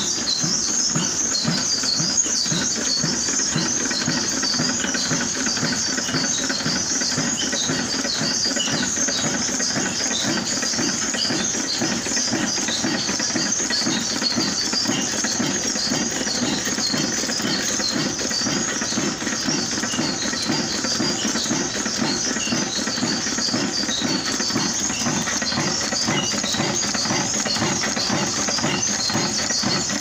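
22-horsepower Pakistani 'Kala' desi diesel oil engine running steadily, its heavy flywheel turning, with an even, rapid beat of firing strokes. A dense high-pitched chatter runs over it throughout.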